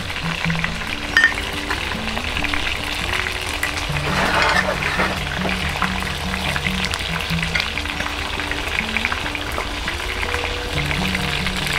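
Carp deep-frying in hot oil in a wok, with steady crackling and sizzling, over background music.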